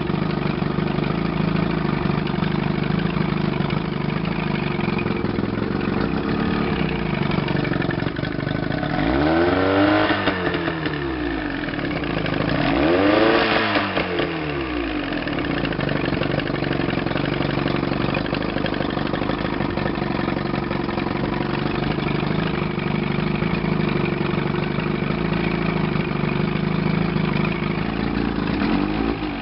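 Johnson 35 hp two-stroke outboard engine running at a steady idle, revved up and back down twice about nine and twelve seconds in, with a brief blip near the end.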